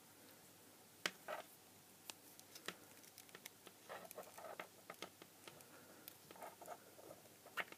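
Faint scattered clicks and light scrapes of a small blade prying at the seam of a small USB LED light's plastic diffuser dome, working it loose from the housing. There is a sharper click near the end.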